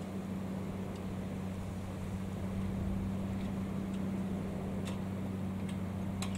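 A fishing trawler's engine giving a steady low drone across the water, over a rushing background of wind and sea. A few sharp faint clicks come near the end.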